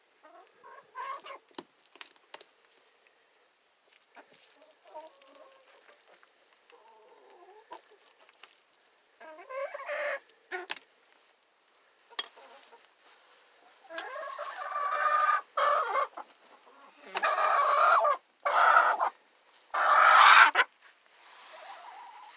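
Hens clucking and murmuring softly while feeding, the low chatter the keeper calls the sound of contentment. Later come several loud, drawn-out calls, each a second or two long, the loudest near the end.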